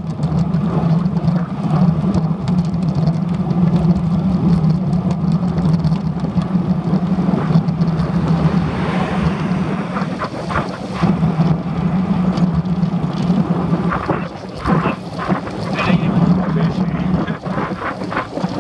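Wind buffeting the microphone of a handlebar-mounted camera on a moving road bicycle, a steady rushing with a low hum underneath. A vehicle goes by about halfway through, and the buffeting turns gustier after it.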